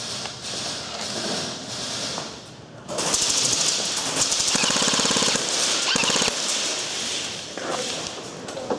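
Airsoft guns firing on full auto: rapid strings of shots, with a long, loud burst starting about three seconds in and lasting about three seconds.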